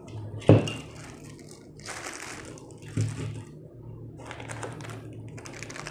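Plastic accessory bags crinkling and small parts being handled while a CPU water-cooler kit is unpacked, in several short bursts, with a sharp click about half a second in.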